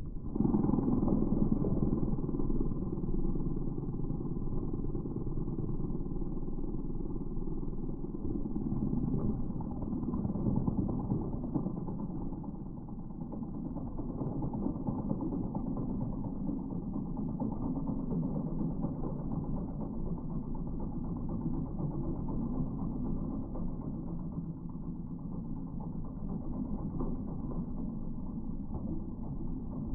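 Bobcat E10 mini excavator's diesel engine running steadily under load while it drives a hydraulic Geko stump grinder, a dense mechanical rumble that starts abruptly and holds even throughout.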